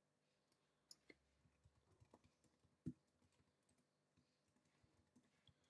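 Near silence with a few faint, sparse clicks of computer keys, the loudest about three seconds in.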